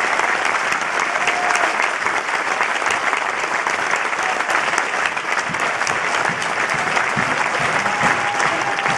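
Concert audience applauding steadily after a song ends.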